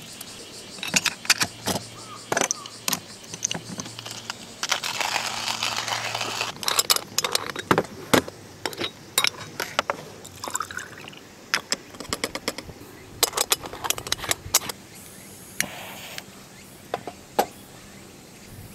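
Metal clinks and knocks of a Bialetti aluminium moka pot being handled and put together, its parts tapping against each other and a metal surface. A brief rushing hiss comes about five seconds in.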